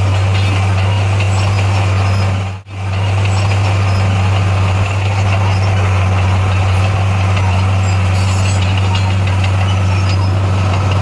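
Bulldozer's diesel engine running steadily with a constant low drone. The sound drops out for a split second about two and a half seconds in.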